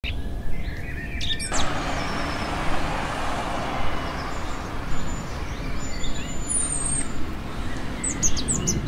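Street ambience: a steady wash of traffic noise, with birds chirping briefly near the start and again near the end.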